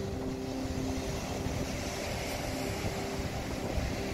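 Ocean surf breaking on a rocky shore, a steady rushing noise with wind on the microphone, and a faint low drone that comes and goes over it.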